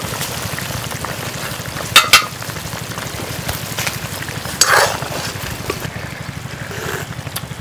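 Fish curry boiling and sizzling in an iron karai over a wood fire, nearly done, with a low steady rumble underneath. Short clinks of the metal lid and spoon come about two seconds in and again near five seconds.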